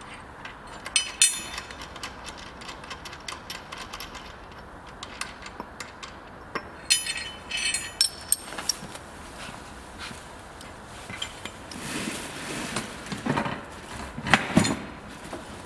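Hand tools and steel fittings on a galvanised steel sweeper frame: sharp ringing clinks and light ticks of a spanner working nuts and bolts, then scraping and a few heavier metal knocks as the steel frame sections are pushed together near the end.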